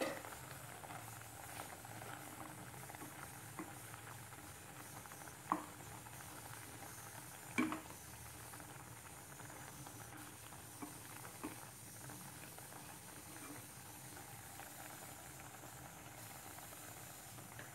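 Water-based, oil-free fish curry bubbling softly at a simmer in a wok. There are a few clicks of a utensil against the pan; the loudest two come about five and a half and seven and a half seconds in.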